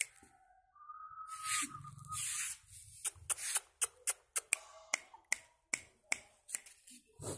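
A person making a quick run of sharp clicks, finger snaps or tongue clicks, about three a second through the second half, after a short hiss with a thin whistling tone.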